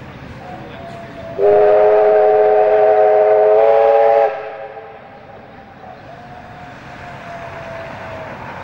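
Steam whistle of a Victorian Railways R class 4-6-4 steam locomotive blowing one loud blast of about three seconds, several notes sounding together. A fainter single whistle note comes just before it, and another, slowly falling, comes after it.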